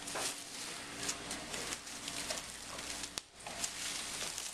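Plastic wrapping crinkling and rustling as scissors cut through it, with a sharp click about three seconds in.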